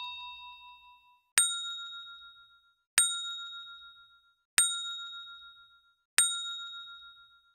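Notification-bell sound effect from a subscribe animation: four identical bright dings about a second and a half apart, each ringing and fading away before the next.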